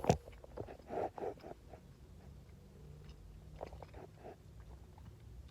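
Close-up mouth sounds of a person biting and chewing a triple cheeseburger: a sharp click right at the start, then clusters of wet chewing about a second in and again near four seconds, over a faint steady low hum.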